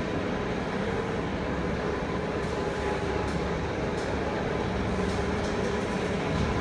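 Chain-driven pallet changer of a GF-1530JH fiber laser cutting machine running: a steady mechanical rumble with a constant motor hum and a few light clicks.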